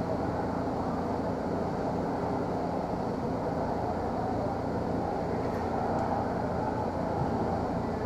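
Steady background rumble with a faint low hum, the room noise of a large indoor hall.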